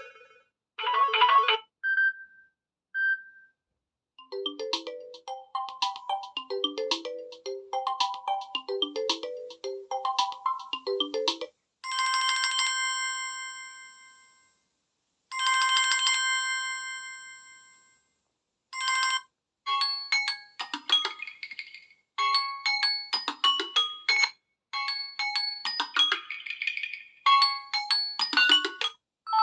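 Samsung Galaxy Tab A7 Lite ringtones played one after another. First come a couple of short beeps, then a quick melody of short notes, then two long ringing tones that fade out, and last several fast, repeating chime patterns.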